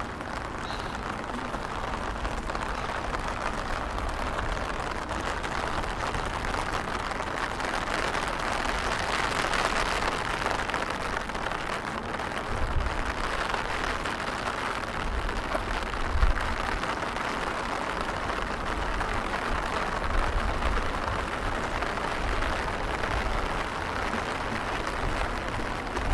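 Steady hiss of rain falling on a wet stone bridge and river, with a few brief low rumbles partway through.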